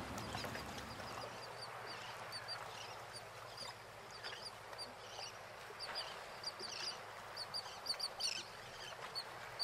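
Many short, high bird calls over a soft wash of waves that slowly fades away.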